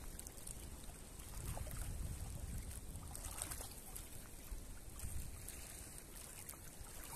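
Wind rumbling on the microphone over a choppy lake, with small waves lapping at the water's edge.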